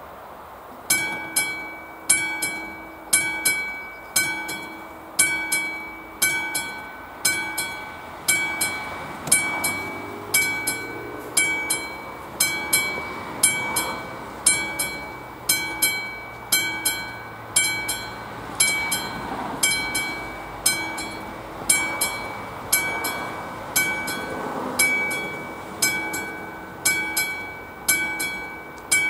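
Level-crossing warning bell ringing with one strike about every second, starting about a second in, each strike ringing on briefly. The crossing has been activated, warning of an approaching train.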